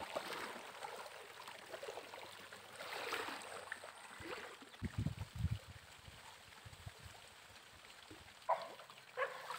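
Faint running water pouring and trickling into a fish pond, with soft sloshing as a person wades through the shallow water, including a few low thuds about five seconds in.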